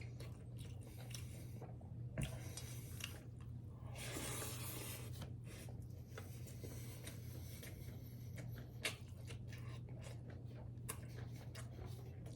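Close-up eating sounds: chewing a meal of pork and rice, with many small wet clicks. There is a longer noisy rustle about four seconds in, over a steady low hum.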